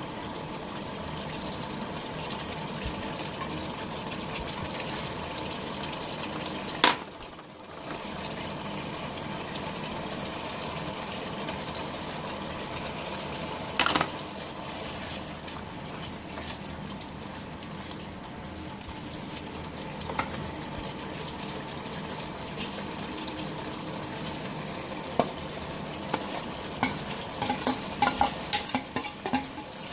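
Food sizzling steadily as it fries in a pot for chicken biryani. Two sharp metal knocks come in the first half, and a run of quick clatters near the end as a utensil stirs against the pot.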